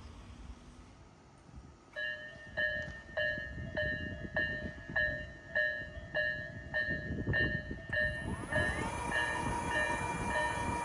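Japanese level crossing warning bell starts ringing about two seconds in, a steady clanging repeated about every 0.6 seconds. Near the end an approaching train's noise builds under the bell, with a tone that rises and then holds.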